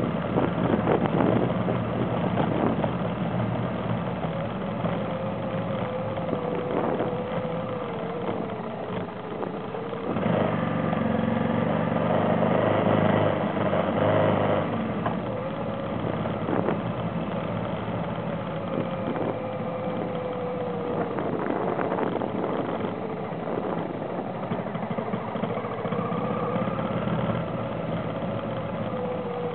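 Vehicle engine running while driving a rough dirt road, its pitch rising and falling with speed. It gets louder for several seconds about a third of the way in, with scattered knocks and rattles from the bumpy surface.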